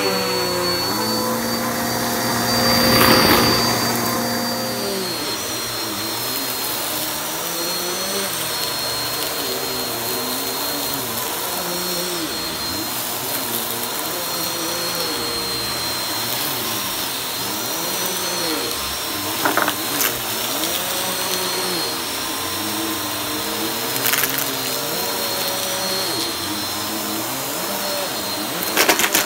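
Upright vacuum cleaner running over carpet, sucking up shredded tissue paper. The motor's pitch wavers up and down as the paper is drawn in, with a few sharp clicks from debris going up the machine.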